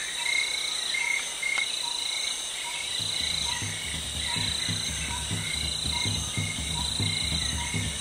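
Crickets and other insects chirping in a steady repeating pattern. A low rhythmic pulsing joins in about three seconds in.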